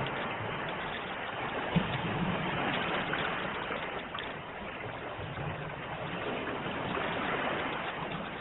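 Sea waves washing on the shore in a continuous rushing wash that swells and ebbs slowly, with one brief sharp click about two seconds in.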